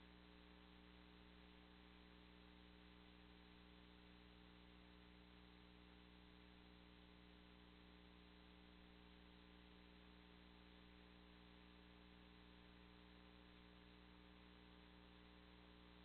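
Near silence: only a faint, steady electrical hum with a low hiss underneath, unchanging throughout.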